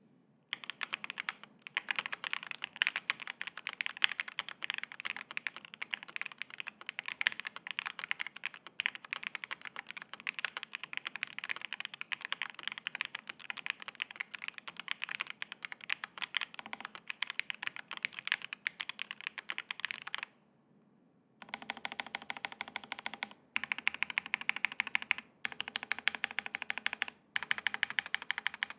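Fast, continuous typing on a SAAG65 prototype mechanical keyboard with stock Keygeek Raw linear switches, an FR4 plate and PBT keycaps: a dense patter of keystrokes. About two-thirds of the way through it stops for about a second, then goes on in stretches broken by short pauses.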